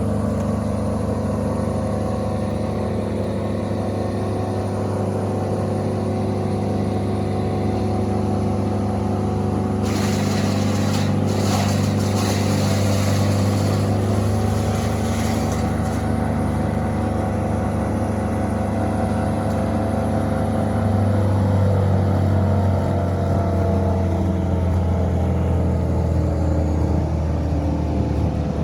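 A large engine running steadily at constant speed. From about ten to sixteen seconds in, a rushing noise rises over the engine sound.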